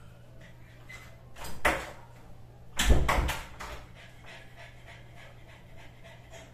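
A sleeping man's loud rasping snore-snorts: a short one about one and a half seconds in and a longer one about a second later.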